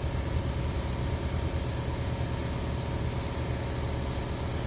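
Steady hiss of a leaky compressed-air hose, over a continuous low hum.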